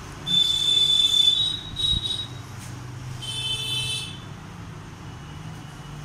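Two high-pitched steady squeals: the first lasts about two seconds and steps up slightly in pitch, the second about a second, over a low steady hum.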